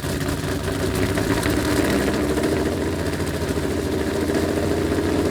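A small engine idling steadily with a fast, even putter.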